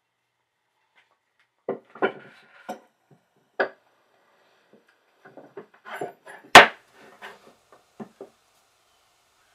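Light wooden knocks and clicks as a wooden block and a small brass fitting are handled and fitted together on a workbench, irregular and spaced out, with one sharp knock a little past the middle.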